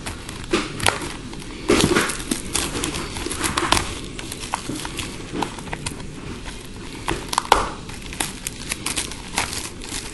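Crinkling and crackling of a sealed trading-card box being unwrapped and opened, plastic wrap and cardboard handled in quick irregular clicks with a few louder knocks.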